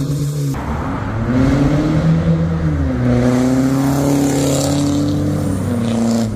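Audi A6 2.0 TDI diesel with a straight-through turbo-back exhaust, driving past under acceleration. The exhaust note rises, holds steady, then drops near the end.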